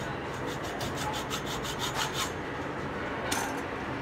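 Hand hacksaw cutting through a metal piece clamped in a bench vise, in quick, even back-and-forth strokes that stop a little over two seconds in. A short noise follows about three seconds in.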